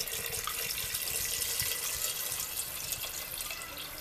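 Water pouring in a steady stream from a kettle into a pressure cooker, splashing onto chicken feet and sauce.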